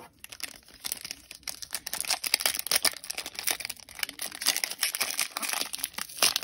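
A foil-wrapped 2023 Panini Prestige trading-card pack being torn open and crinkled by hand. It makes a dense, irregular run of sharp crackles.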